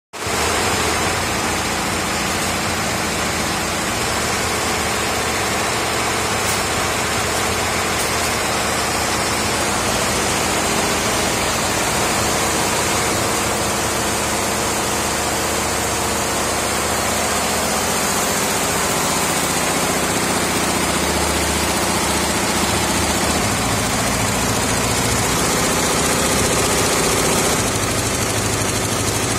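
Yonthin 68-head industrial embroidery machine stitching at about 900 rpm: the steady mechanical running noise of many needle heads working at once.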